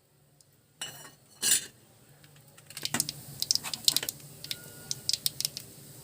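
Mustard seeds and urad dal crackling and popping in hot peanut oil. A couple of utensil knocks come first, then sharp, irregular pops from about three seconds in.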